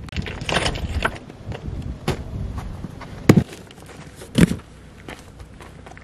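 Wind rumbling on the microphone, with scattered crackles and two sharp thumps about a second apart near the middle.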